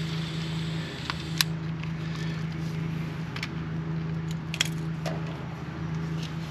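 A steady mechanical hum, with a few light clicks and taps of small parts or tools.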